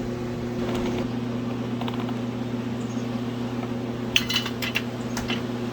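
Electric cooling fan running with a steady hum, with a few sharp clicks of a tool or part about four seconds in.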